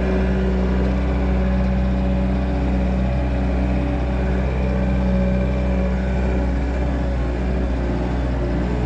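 An engine running steadily at constant speed with a low, even drone.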